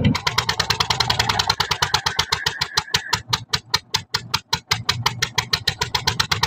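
Single-cylinder diesel engine powering a water-well drilling rig, running with a fast, even chugging of about nine exhaust beats a second.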